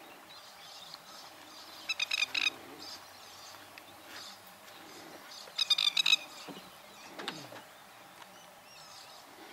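A bird calling in two short bursts of rapid, repeated high notes, about two seconds in and again about six seconds in, over a faint steady background hiss.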